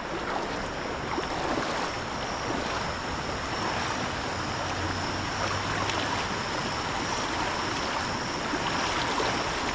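Steady rush of moving water, with a faint steady high-pitched tone above it.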